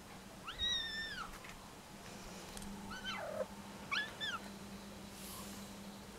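Domestic cat meowing four times: one long call about half a second in that rises and falls, then three shorter calls around three and four seconds in.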